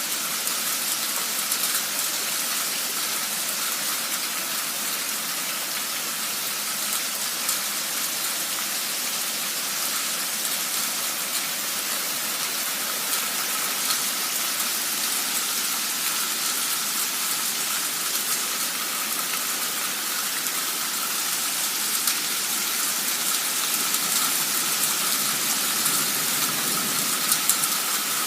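Heavy rain from a sudden cloudburst pouring down steadily, with a faint steady tone beneath it and a few small ticks of drops near the end.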